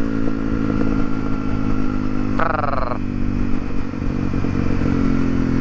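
Honda CRF250L supermoto's single-cylinder four-stroke engine running steadily while the bike is ridden, holding an even pitch without big revs.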